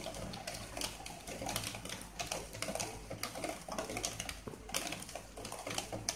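Wooden spatula stirring a thick milk-and-cheese sauce in a non-stick kadai, a rapid, irregular run of clicks and scrapes against the pan through the sauce.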